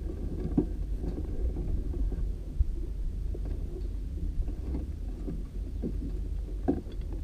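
Two-seater dragster rolling slowly, heard on board as a steady low rumble with a few light knocks and rattles.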